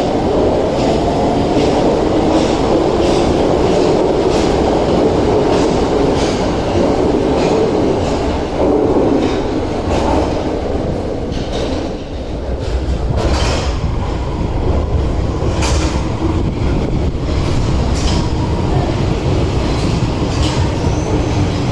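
Tokyo Metro Marunouchi Line subway trains (02 series and 2000 series) moving through an underground station: a steady rumble of the cars with clicks over the rail joints and some wheel squeal. The noise dips briefly about twelve seconds in.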